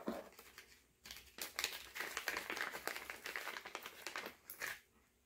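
Packaging crinkling and rustling in irregular handfuls for about four seconds as a crystal is taken out of its wrapping.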